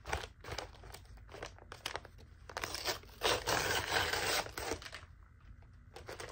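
Brown paper mailer being crinkled and torn open by hand: scattered crackles, then a denser, louder stretch of rustling and tearing about three seconds in.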